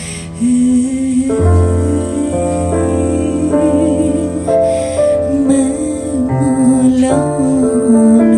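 Albanian folk song in an unplugged arrangement: a woman sings an ornamented, wavering melody over sustained accordion chords that change about every second.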